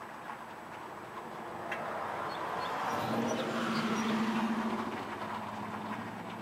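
A vehicle passing by, its engine and tyre noise swelling to a peak about four seconds in and then fading.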